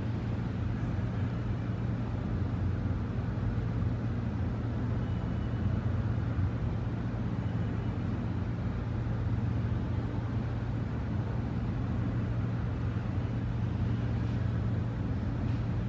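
Steady low mechanical drone with a constant deep hum underneath, unchanging throughout.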